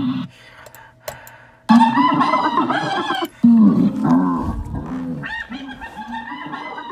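Animal calls in quick succession: a loud pitched call about two seconds in, another about a second and a half later, then a run of short repeated calls near the end.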